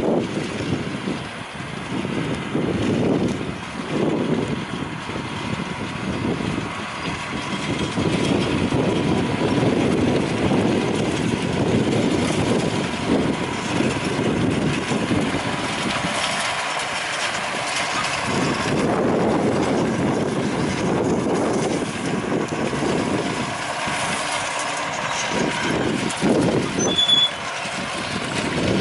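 John Deere 6145R tractor's six-cylinder diesel engine running under steady working load as it pulls a PTO-driven KUHN rotary haymaking implement across cut grass, the sound swelling and fading as the tractor passes.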